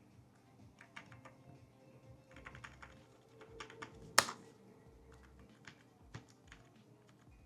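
Keys being pressed on a computer keyboard: scattered keystrokes, a quick run of them around two to four seconds in, and one much louder key strike about four seconds in.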